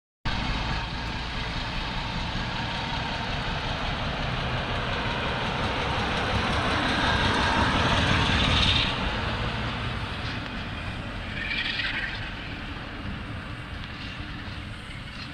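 British Rail Class 47 diesel locomotive 47813, its Sulzer twelve-cylinder engine running with a low rumble as it passes close by. It grows louder to a peak about eight or nine seconds in, then fades as the locomotive draws away, with a short hiss about twelve seconds in.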